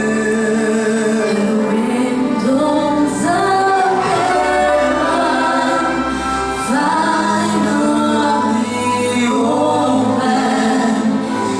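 Choir singing a Christmas gospel piece with orchestra accompaniment. The voices hold and glide between sustained chords over low bass notes.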